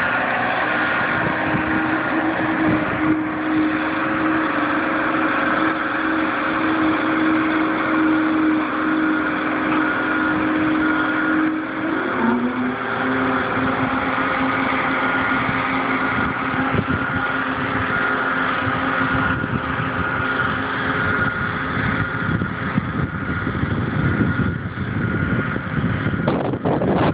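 Engine of a 3-ton road roller running steadily as it drives across grass, its engine note dropping slightly about twelve seconds in.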